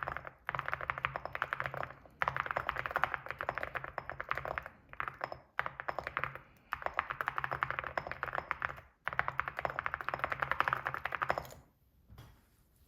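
Fast typing on an Evo75 mechanical keyboard with ceramic keycaps: dense runs of key clicks broken by brief pauses, stopping about eleven and a half seconds in.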